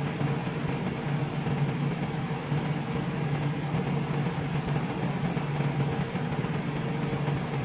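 A steady low mechanical hum and whir that holds unchanged throughout.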